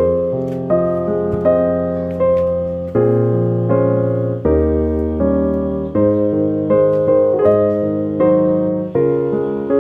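Background piano music: gentle notes and chords struck about every three-quarters of a second, each fading before the next.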